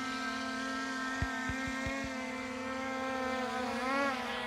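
Quadcopter drone's propellers whining steadily in strong wind, the pitch wavering up and down near the end as the motors work against the gusts. A few low thumps of wind buffeting the microphone come about a second in.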